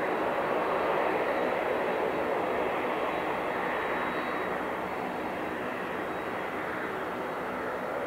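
Boeing 767-300 jet engines at taxi power: a steady rushing hum with a faint high whine, swelling slightly about a second in and easing a little afterwards.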